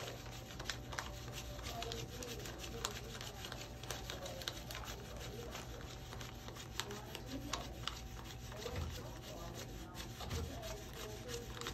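Paper banknotes being counted by hand, bills flicked and rubbed past the thumb one after another in quick, irregular papery ticks.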